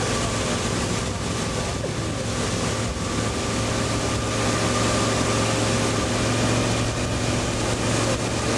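Motorboat engine running steadily at towing speed: a constant low drone under the rush of the wake and wind buffeting the microphone.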